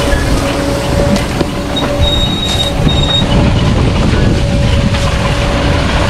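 Grimme Ventor 4150 self-propelled potato harvester running while it digs, a steady machine drone with a continuous rattle of the digging and conveying gear. A constant whine runs through it, and a brief high whistle sounds about two seconds in.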